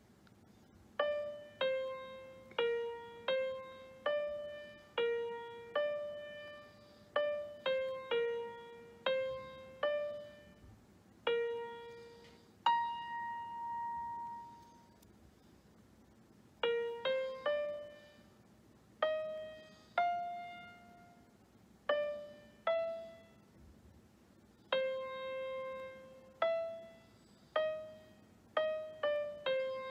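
Piano app on a tablet sounding single piano notes one at a time as toes tap its on-screen keys. It is a slow, halting beginner's melody with no chords, each note dying away, about one or two notes a second. Midway there is a longer held note and then a pause of a few seconds.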